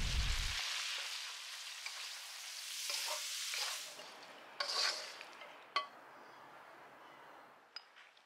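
Slices of pork belly sizzling in hot oil in a wok, the sizzle fading after about four seconds. Then a short scrape and a sharp click as the stir-fry is spooned onto a plate.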